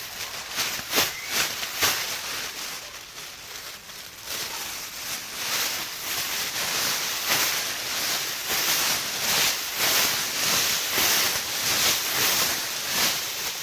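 Thin foil emergency sleeping bag crinkling and rustling as it is handled, a crackly hiss. A couple of sharp crinkles come near the start, and it becomes a continuous crackle from about four seconds in.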